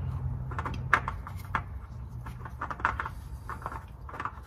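Scattered light clicks and taps of something being handled, over a steady low hum.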